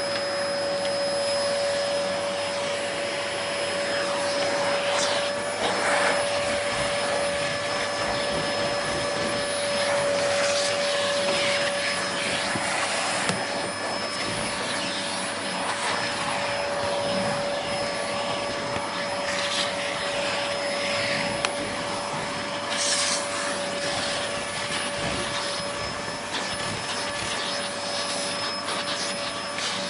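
Vacuum cleaner running steadily: a constant motor whine over an even rushing hiss, with short swells in the hiss here and there.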